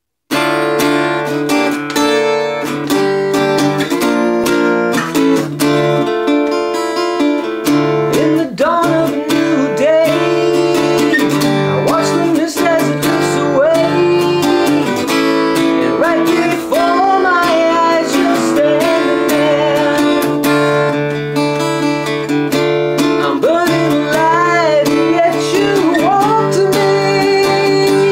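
Acoustic guitar strummed in steady chords, with a man's singing voice joining about eight seconds in.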